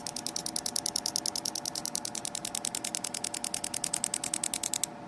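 Car engine idling with a fast, even ticking, about ten ticks a second, over a steady hum. This is the tick for which the car was judged to need an engine overhaul.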